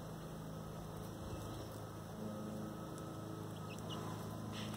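A low steady hum.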